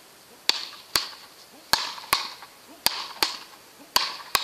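Beach-racket paddles hitting a small ball back and forth in a quick rally: about eight sharp cracks, roughly two a second, falling in pairs.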